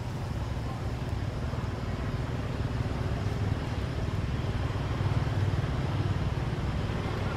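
Steady low rumbling background noise with no distinct events, growing a little louder about halfway through.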